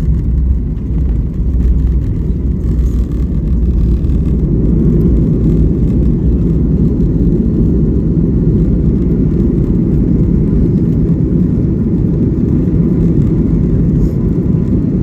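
Steady low rumble of a passenger airliner heard from inside the cabin. The deepest part of the rumble eases about four seconds in, leaving a steady lower-mid roar.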